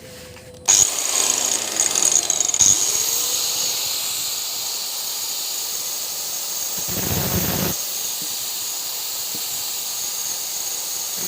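A small power grinder running with a steady high whine and hiss as it grinds down the depth gauges (rakers) on a chainsaw chain. It starts suddenly under a second in, with a brief heavier grinding burst about seven seconds in.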